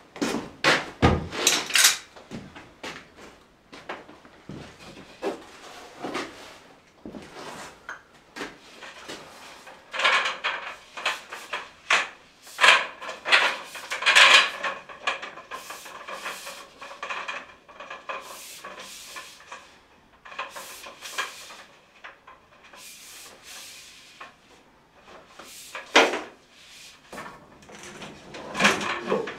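Irregular rustling, scraping and knocks of a coil of flexible plastic pipe being handled, unrolled and fed up along a wall, with a few footsteps. The handling is busiest in the middle and again near the end.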